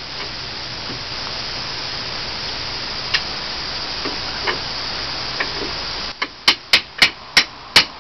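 Steady hiss with a few scattered clicks, then a quick run of about six sharp taps, roughly three a second, near the end.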